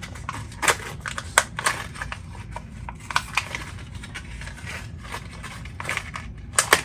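Irregular hard clicks and light knocks of pegs being handled and fitted against a pegboard wall, with a quick pair of louder clicks near the end.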